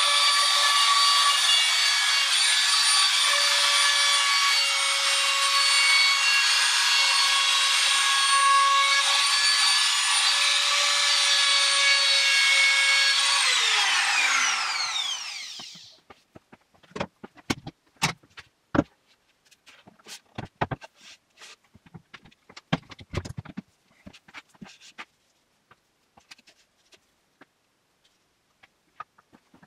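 Trim router running steadily with a high whine while cutting the edge of spruce boards. About 13 seconds in it is switched off and winds down over a couple of seconds. After that come scattered light knocks and clicks of the tool and wood being handled.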